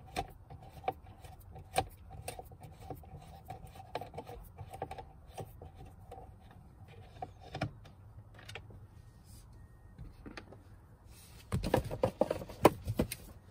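Small clicks and ticks of a Torx T15 screwdriver turning a screw out of a plastic car centre console. Near the end comes about two seconds of louder clattering and knocking as tools are handled.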